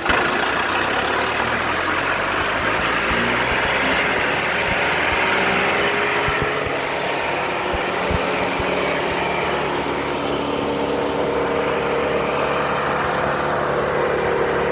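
Vermeer BC1800 wood chipper's 4.5-litre John Deere turbo diesel revving up from idle, its pitch climbing over the first few seconds and then running steadily at speed. A few sharp knocks come around the middle.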